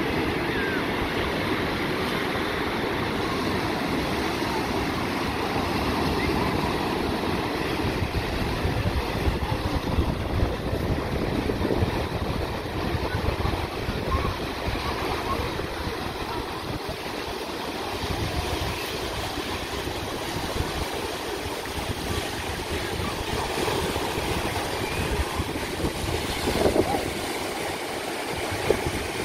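Small sea waves breaking and washing up a sandy shore in a steady surf wash, with wind rumbling on the microphone and faint voices of bathers.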